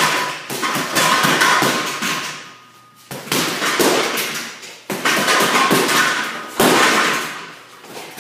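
Gloved punches thudding into a heavy bag in fast flurries, with a short pause about three seconds in and another near the end.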